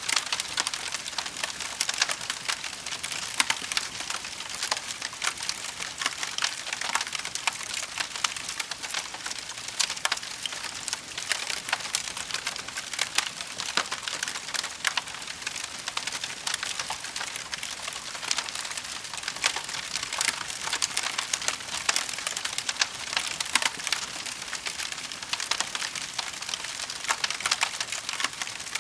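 Wood fire crackling in a fireplace: a dense, irregular stream of small snaps and pops over a soft hiss.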